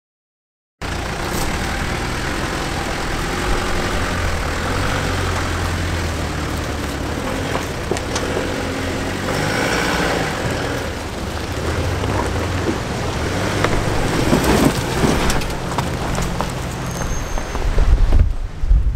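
A four-wheel-drive vehicle's engine running at low revs, its hum shifting up and down, under heavy wind noise buffeting the microphone, with a few knocks and rattles. The sound cuts in abruptly about a second in.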